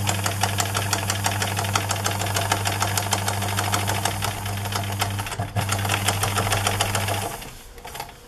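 Domestic electric sewing machine stitching through fabric binding: a steady motor hum with rapid, even needle clicking. It breaks off briefly about five seconds in, runs on, then stops about a second before the end.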